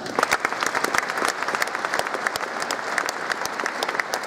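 Audience applauding: many hands clapping together in a steady, even patter.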